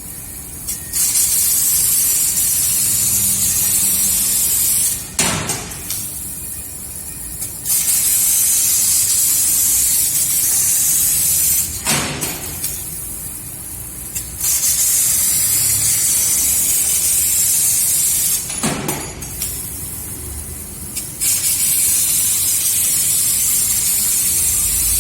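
CNC laser cutter cutting sheet steel: a loud hiss of assist gas during each cut, in four stretches of about four seconds, dropping away for a couple of seconds between cuts, with a sharp click at some of the breaks.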